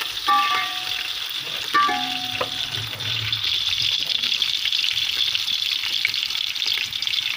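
Sliced onions frying in hot oil, a steady sizzle, as they are browned toward golden brown.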